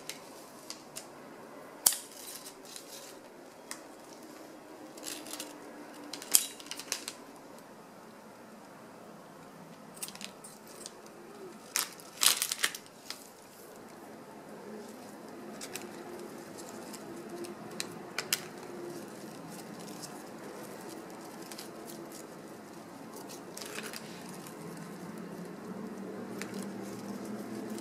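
Crumpled paper wrapping rustling as flower stems are handled and gathered into a bouquet, with a few sharp crinkles, the loudest cluster about twelve seconds in.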